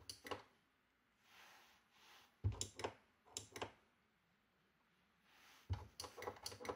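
Footswitches on a Zoom B6 bass multi-effects pedal being pressed by hand, each press a short click with a dull thump. The presses come in quick clusters of a few: right at the start, about two and a half seconds in, and again near the end.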